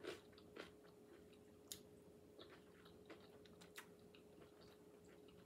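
Faint, closed-mouth chewing of a crunchy pita cracker topped with tuna salad, a few soft crunches spaced about half a second to a second apart.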